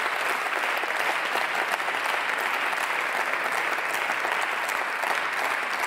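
Steady applause from many people clapping at once, an even, continuous patter that holds at one level throughout.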